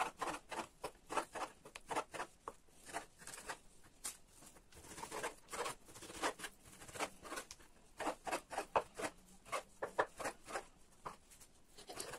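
Kitchen knife slicing raw meat on a wooden cutting board: a quick run of short cutting strokes and taps on the board, two or three a second, blurring into a steadier scraping for a moment around the middle.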